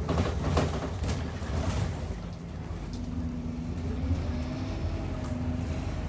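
Scania N230UD double-decker bus running on the road, its five-cylinder diesel giving a steady low drone, with a burst of rattling knocks in the first second and a faint whine that rises gently from about three seconds in.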